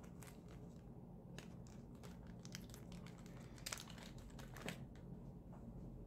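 Faint crinkling and light clicks of a small clear plastic packet of craft glitter being handled and opened, with two slightly louder crinkles about two-thirds of the way through.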